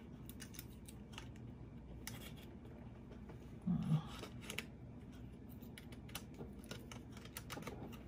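Faint handling noise: scattered light clicks and scrapes as a USB flash drive is fitted into a Microsoft Surface Pro, with a short low bump about four seconds in.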